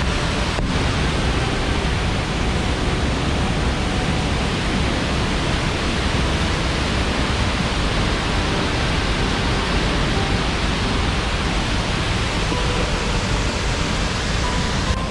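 Tahquamenon Falls' water rushing over the falls: a loud, steady, even rush with no break.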